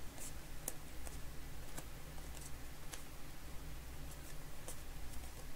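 Football trading cards being handled and flipped through by hand, giving scattered faint clicks and flicks of card stock over a steady low hum.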